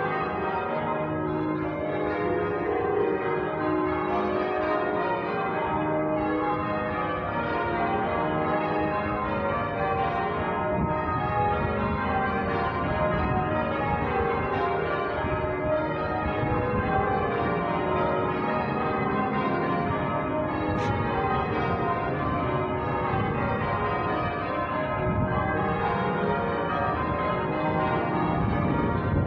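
Church bells ringing out, several bells struck one after another in a continuous round, their tones overlapping and ringing on into each other.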